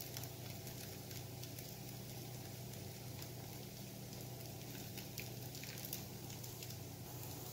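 Jala appam batter cooking in ghee on a hot dosa tawa: faint sizzling with scattered tiny crackles, over a steady low hum.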